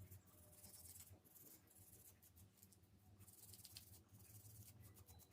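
Faint, intermittent scrubbing and scratching from cleaning limescale off the blender's electrical parts, over a low steady hum.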